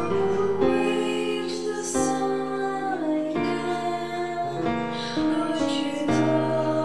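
Slow, tender church song: voices singing over an instrumental accompaniment, the chords changing about once a second.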